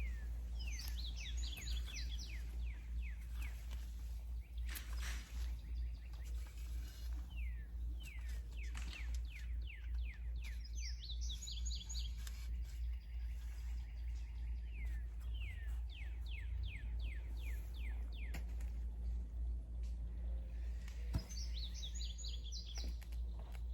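A songbird singing repeated phrases, each a high twittering burst followed by a run of quick descending notes, recurring about every ten seconds over a steady low rumble.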